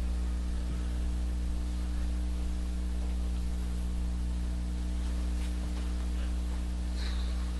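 Steady electrical mains hum with a faint hiss, the room and recording chain's background noise under silent signing.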